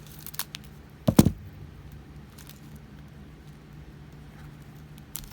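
Small plastic storage jars and drill bags being handled on a tabletop: a few light clicks, then one louder knock about a second in, over a steady low hum.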